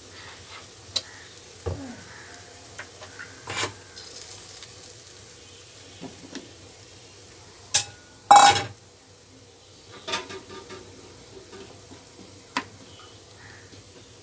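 Eggplant pieces frying in mustard oil in a nonstick frying pan: a faint sizzle under scattered knocks and clatters of utensils against the pan, the loudest clatter about eight seconds in.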